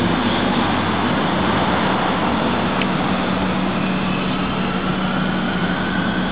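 Subway train running through the station, a loud steady rumble with a low hum and a faint whine that rises slowly in the second half.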